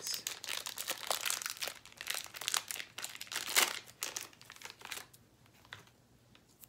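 Packaging crinkling and rustling as it is handled and opened by hand, a dense run of crackles with one louder crunch before it stops about five seconds in.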